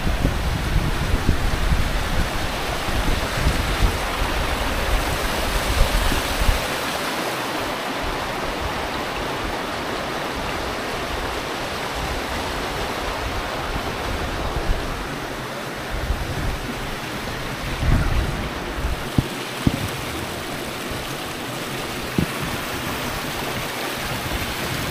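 Flowing water of a stream running steadily, a constant rushing hiss. Wind buffets the microphone with a low rumble for the first several seconds, and a few low knocks come near the end.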